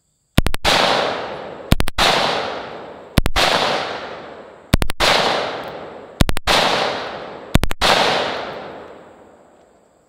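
Colt M16A1 rifle in 5.56 mm fired on full auto in six short bursts of three or four shots, about one and a half seconds apart, each burst followed by a long echo that fades away.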